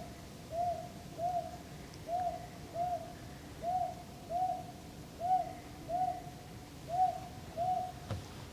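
An owl hooting: a steady series of about a dozen short, evenly spaced hoots on one pitch, roughly three every two seconds.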